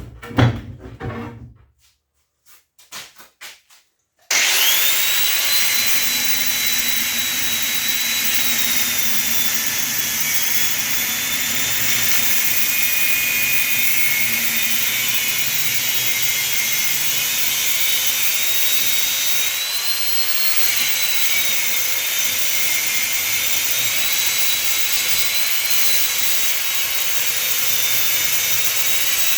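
Handheld electric power tool cutting scrap metal to free brass pieces. It starts about four seconds in and runs with a loud, steady high whine that wavers slightly in pitch as it bites. A few light handling clicks come before it.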